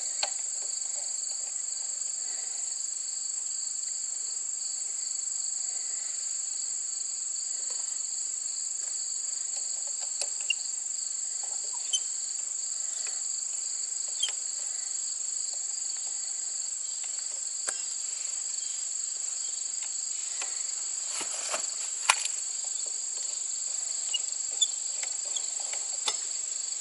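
Steady high-pitched insect chorus, an unbroken shrill drone in two pitches, with scattered small clicks and taps of hand tools on the motorcycle's rear brake caliper as the pad pin is reinstalled, a cluster of louder ones about three quarters of the way through.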